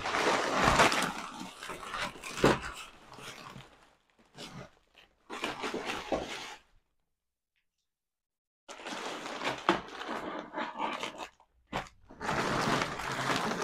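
Shopping bags rustling and crinkling as packets and goods are tipped out and handled on a floor, with a few knocks of items landing. The sound cuts out entirely for about two seconds in the middle.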